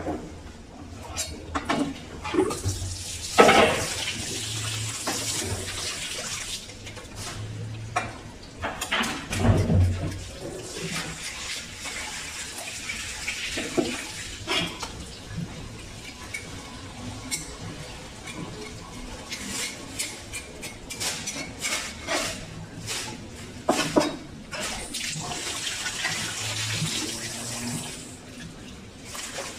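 Water running from a hose onto a tiled floor, with a steady hiss that swells and fades in long stretches. Through it come repeated knife strokes and knocks on a wooden cutting board as a large fish is filleted.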